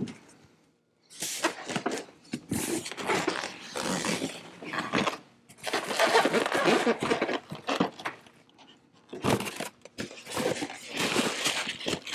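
Clear plastic wrap crinkling and rustling as it is handled and pulled at on a boxed electric heater, in three long stretches with short quiet pauses between.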